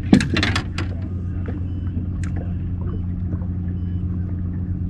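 Boat motor running with a steady low hum, with a brief clatter of knocks and rattles in the first second.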